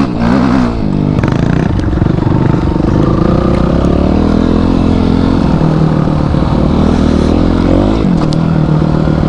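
Motorcycle engine running while riding, its revs falling and rising a few times with throttle and gear changes.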